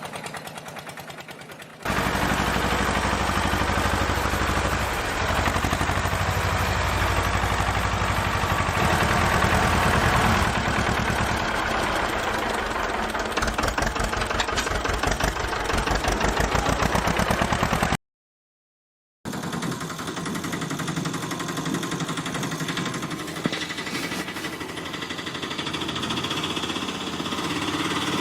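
Engine running with a fast, even chugging beat, like a tractor engine. It gets louder about two seconds in, cuts off abruptly to silence for about a second later on, then comes back lighter.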